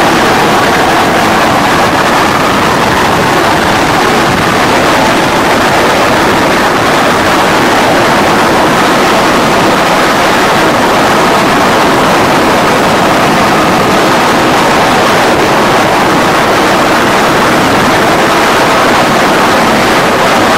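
Rescue helicopter's engine and rotor noise, loud and steady, heard from aboard the hovering helicopter with the cabin door open.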